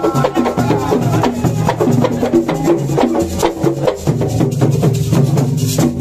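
A group of hand drums played live in a fast, dense interlocking rhythm. This is Senegalese assiko-style percussion, with sharp, wood-like slaps over deeper drum tones.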